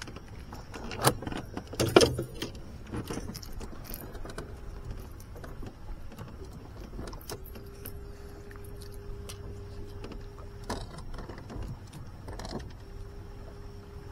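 Clinks and knocks of gear being handled in a fishing boat, with two louder knocks in the first two seconds. A steady hum comes on about seven seconds in, stops, and comes back near the end.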